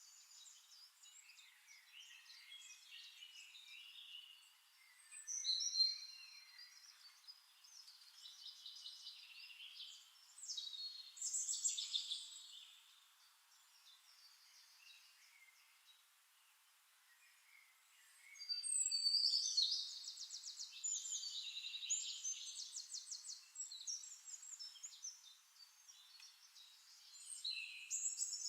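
Songbirds chirping and trilling in bouts, with a quieter stretch in the middle; the loudest bout starts about two-thirds of the way in.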